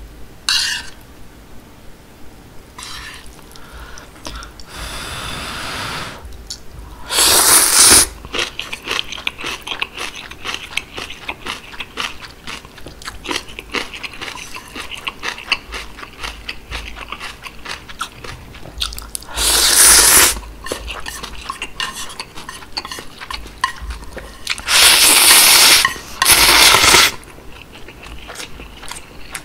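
Close-miked slurping and chewing of instant ramen noodles in beef seaweed soup. There are loud slurps about seven seconds in and around twenty seconds, two more in quick succession near the end, and soft wet chewing in between.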